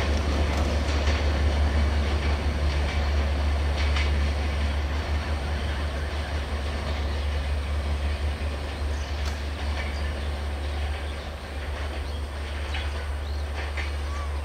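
Broad-gauge passenger train rolling away along the track: a steady rumble and wheel noise slowly fading, with a few faint clicks.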